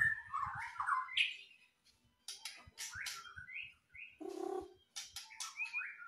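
White-rumped shama (murai batu) singing a fast, varied song of short whistles, sharp rising notes and chattering phrases, with a brief pause about two seconds in and a short harsh note a little after four seconds.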